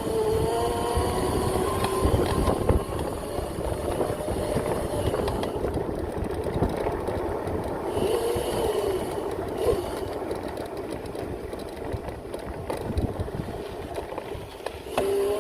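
Razor MX650 electric pit bike with an upgraded 5000 W motor, ridden over a dirt trail. A steady rush of wind and trail noise is heard, with a faint motor whine that rises and falls with speed and occasional knocks and rattles over bumps.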